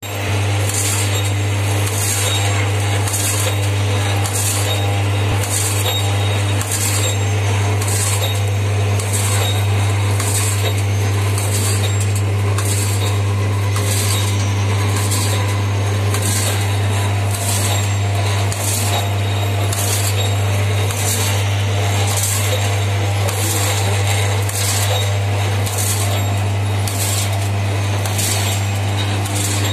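Vertical form-fill-seal pouch packing machine running: a steady low hum under a sharp clattering swish that repeats evenly about every second and a quarter, once per pouch cycle.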